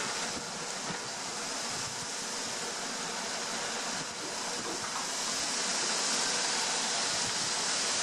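Strong wind blowing, a steady hiss that grows a little louder in the second half.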